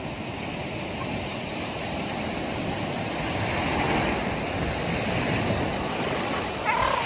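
Sea waves breaking and washing up a shingle beach: a steady rush of surf that swells a few seconds in.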